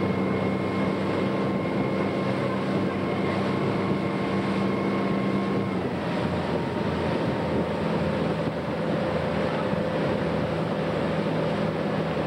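Tow boat's engine running steadily under way, pulling a water skier, over the rush of water and wind. The engine note shifts about six seconds in.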